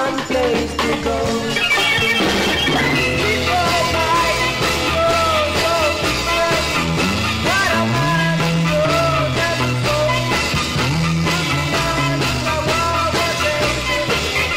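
A band's recorded song playing: a wavering lead melody over a moving bass line and steady drums.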